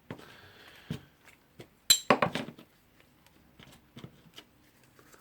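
Small metal parts, washers and a spring, clinking and clattering as they are handled and moved on a workbench. The loudest clink comes about two seconds in, with a brief metallic ring, followed by a few fainter ticks.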